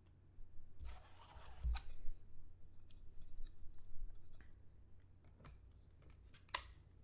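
A clear plastic card case and card being handled on a table. A scraping rustle comes about a second in, then scattered light clicks, and one sharper click near the end as the case is closed over the card.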